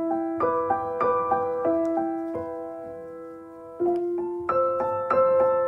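Background piano music: a gentle melody of single notes over held chords, struck every half second or so.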